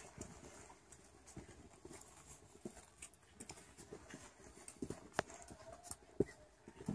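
Footsteps of high, hard-soled boots walking on paving and a footbridge deck: faint, uneven heel clicks, a few sharper ones about five and six seconds in.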